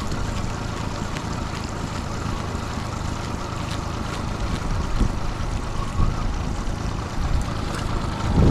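Honda 30 four-stroke outboard motor running steadily at low trolling speed, with wind buffeting the microphone.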